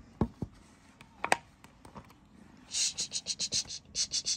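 Clear plastic water bottle being pawed and clawed by a kitten: a few light taps early on, then from about two and a half seconds in a fast run of scratchy crinkling, several scrapes a second.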